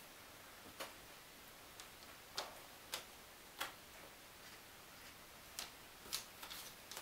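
Light, irregular clicks and taps of small, thin laser-cut wooden pieces being handled and set down on a table, about eight in all, with a quick cluster near the end.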